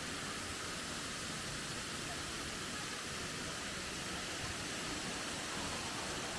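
Steady rush of a waterfall's falling water, an even hiss with no breaks.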